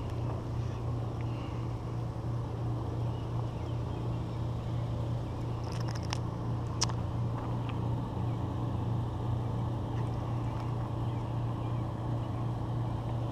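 A steady low motor hum, with a few short sharp clicks about six to seven seconds in.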